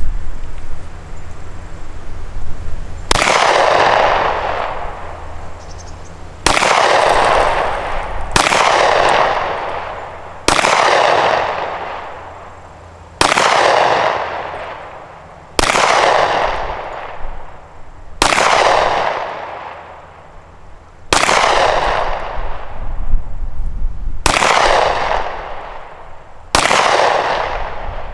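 Pistol shots from a Springfield Armory XD-45 subcompact firing .45 ACP 230-grain full metal jacket rounds. There are about ten single shots, spaced two to three seconds apart, and each has a long echoing tail.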